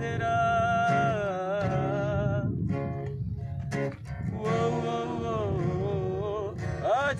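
A man singing long, wavering held notes to his own strummed acoustic guitar. He sings two phrases, with a short break about three seconds in while the guitar carries on.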